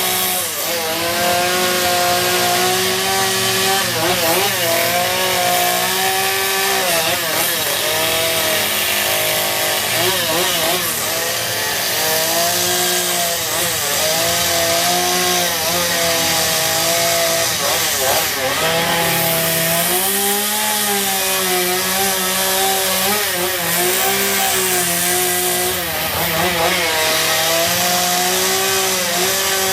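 Gasoline chainsaw running and carving into a wooden log, its engine pitch rising and falling every second or two as the throttle is worked and the chain bites into the wood.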